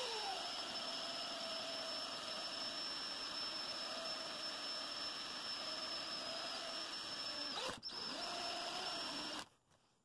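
Small electric drill running with a steady high whine as its bit bores a tail-light hole through a diecast toy car body. The motor cuts out briefly nearly eight seconds in, runs again, and stops about a second later.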